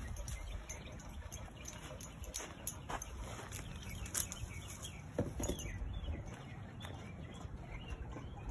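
Footsteps on dirt as a person walks behind a leashed dog, with scattered light clicks over a low, steady rumble on the microphone.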